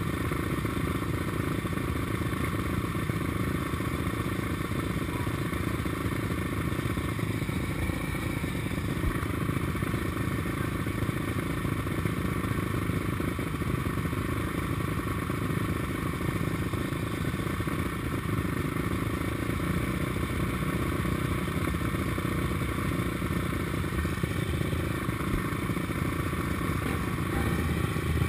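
Suzuki LTR 450 quad's single-cylinder four-stroke engine idling steadily while it waits to race, with other race quads' engines running around it, heard from a camera mounted on the quad.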